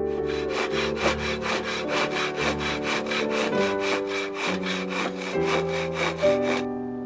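Hand saw cutting wood in quick, even strokes, about four a second, stopping shortly before the end.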